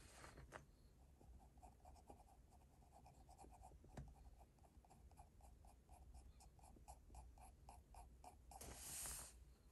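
Faint scratching of a graphite pencil on paper in quick, short shading strokes, about four a second, with a single longer, louder stroke near the end.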